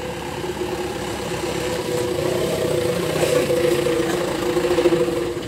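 Diesel engine of a light dump truck loaded with rocks, running steadily as the truck rolls slowly past, growing louder as it comes close.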